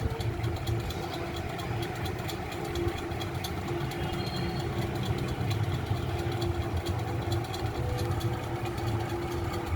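Steady low rumble of a running engine in the background, with a faint steady hum over it.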